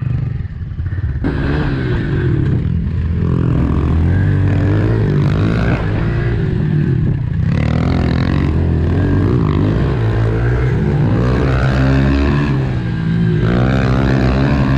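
Dirt bike engine being ridden hard, its pitch repeatedly rising and falling as the rider opens and closes the throttle and shifts, over a heavy low rumble.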